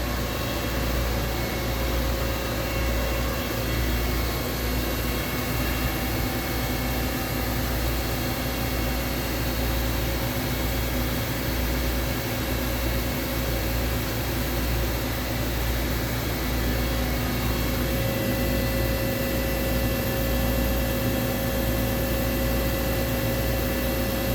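DN Solutions DNM 5700S CNC vertical machining center running under power: a steady machine hum with several held tones over a low rumble. A mid-pitched tone becomes stronger about two-thirds of the way through.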